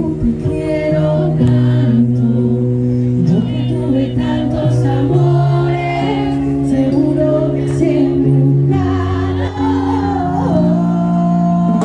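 Live band music with voices singing over long held chords that shift every second or two.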